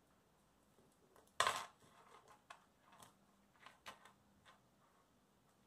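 A small metal keychain chain clinking as it is handled and fitted back onto a mini puzzle cube. The loudest part is a short rattle about a second and a half in, followed by several light clicks and taps.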